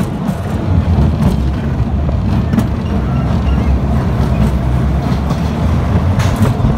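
Pinfari Mini Mega Coaster train running along its tubular steel track, a steady low rumble from the wheels as it rounds the turns, with a sharp clack about six seconds in.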